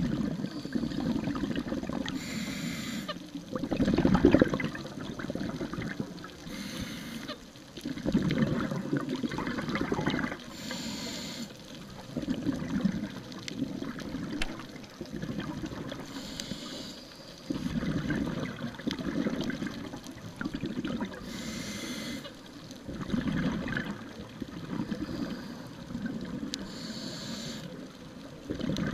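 Scuba diver breathing through a regulator underwater. A short hiss of inhalation comes about every five seconds, and between them the exhaled bubbles gurgle and rumble.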